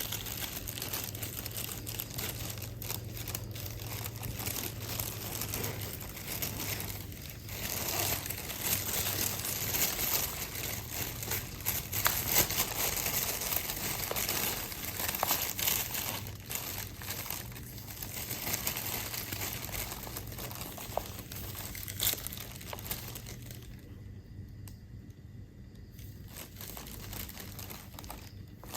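Plastic bag crinkling and rustling in irregular crackles as a cat moves about inside it. The rustling dies down for a couple of seconds near the end.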